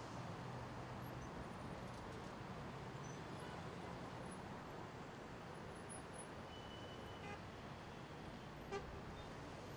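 Steady city road traffic noise, a low even rumble of many cars and buses, with a short car horn toot about nine seconds in.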